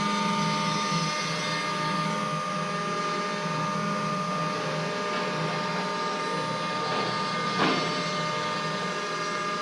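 Small CNC engraving machine's spindle running steadily as it carves stone, with several steady whining tones over a hiss of cutting noise. A short, louder burst comes about seven and a half seconds in.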